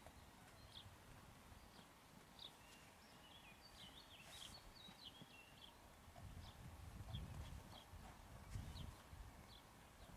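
Faint, muffled hoofbeats of a horse trotting on a sand arena, heavier in the second half, with scattered short high chirps of small birds.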